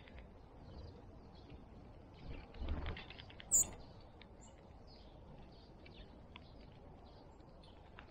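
Small songbirds chirping at a backyard feeder: many short, scattered chirps over a faint background hiss. About two and a half seconds in there is a brief louder rustle, and about a second later one sharp, high call stands out above the rest.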